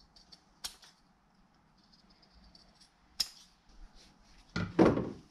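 Seamstress shears cutting through a leather belt blank: faint crisp snips, and two sharp clicks about a second and three seconds in. Near the end comes a louder knock on the wooden workbench.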